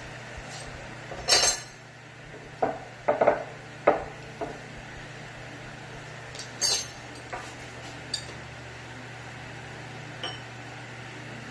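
Scattered light clinks and knocks of a utensil against glass dishware, about ten in all, the loudest about a second in and again midway, over a steady low hum.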